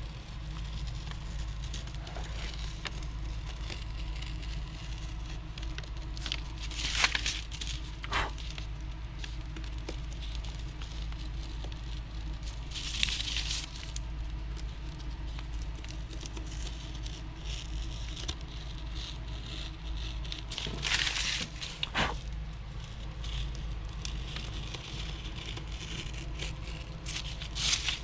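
A few short scrapes and rustles from plastic parts being handled and marked, spread over the stretch, above a steady low hum.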